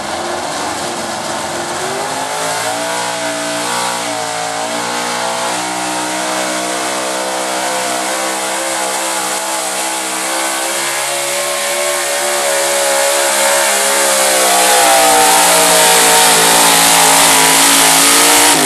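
Super stock 4x4 pull truck's racing engine at full throttle, dragging a weight-transfer sled down a dirt pulling track. The revs climb as it launches about two seconds in, hold high and steady through the pull, and grow louder toward the end. The engine falls off sharply right at the end as the pull stops.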